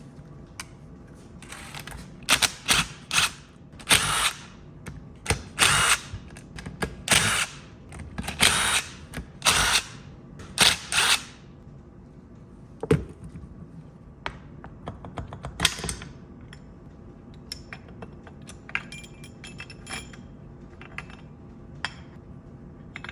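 Power drill-driver running in about a dozen short bursts, backing out the side-cover bolts of a Muncie M21 four-speed transmission; later a sharp knock and scattered light clicks.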